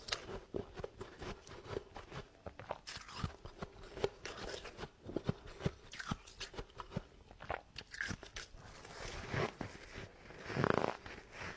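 Freezer frost being bitten and chewed, a run of irregular close crunches and crackles, with one louder, longer crunch near the end.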